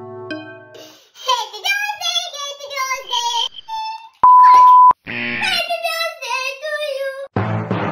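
A high, childlike voice talking in quick phrases, cut about four seconds in by a loud, steady beep lasting under a second, like a censor bleep.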